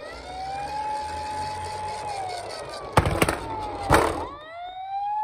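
Toy emergency vehicle's electronic siren: a wail that rises, holds, then falls away, with a low rumble underneath. Two sharp loud clacks follow about a second apart, then the siren starts a new rising wail near the end.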